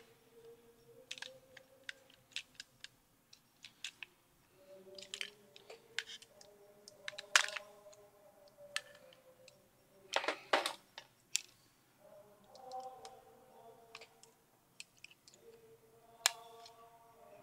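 Scattered small clicks and taps of a tool and small metal parts being handled against a Bolex movie camera's aluminium mechanism plate during disassembly, with a couple of sharper knocks about seven and ten seconds in.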